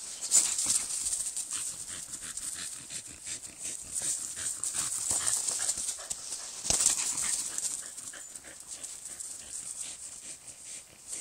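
A dog's breathing and mouth noises around a toy it is carrying, over the crackle of dry fallen leaves under its paws. There are louder moments about half a second in and a little past the middle.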